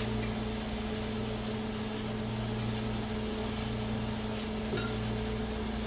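Microwave oven running, a steady electrical hum, while it heats mac and cheese in a mug.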